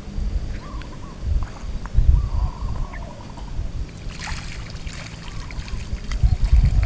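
Water sloshing and trickling in a shallow stream, with a louder crackly splashing from about four seconds in. Low thumps of wind or handling run through it.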